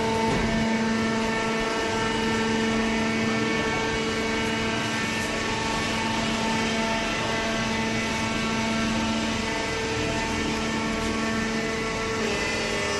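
Hydraulic baling press running: a steady mechanical hum from its hydraulic pump, with an even whine over machine noise. The tone shifts slightly near the end.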